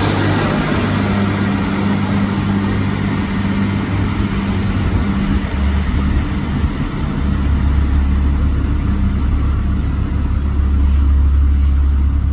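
Diesel train engine running with a loud, steady low hum that shifts to a deeper, louder note about halfway through.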